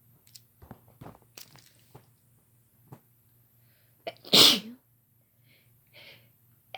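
A woman sneezing once, loudly and sharply, about four seconds in, with a quick catch of breath just before it. Faint clicks and rustles come earlier.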